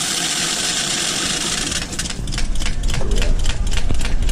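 Coins rattling through a self-service coin-counting machine as it counts them. At first it is a dense jingle of loose coins. About two seconds in it changes to a fast, even clatter over the hum of the machine's motor.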